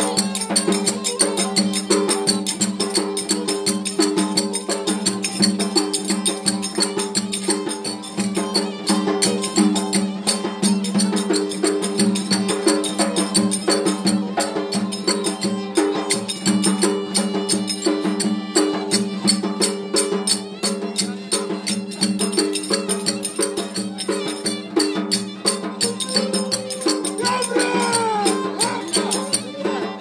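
Turkish folk fiddle: a violin held upright on the knee and bowed, playing a dance tune over fast, rhythmic clicking hand percussion.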